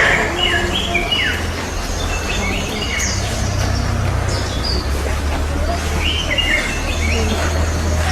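Birds chirping in short, repeated notes, heard over a steady low rumble.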